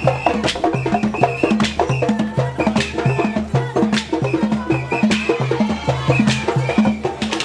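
Music with a steady beat: a repeating bass line under sharp percussive clicks and a line of short high notes.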